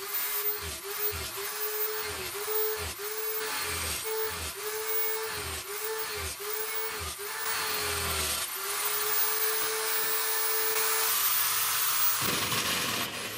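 Electric drill mounted in a homemade drill stand, its motor whining and dipping in pitch about twice a second as the small bit is pressed into steel square tubing, then running at a steady pitch from about two thirds in. The whine stops near the end.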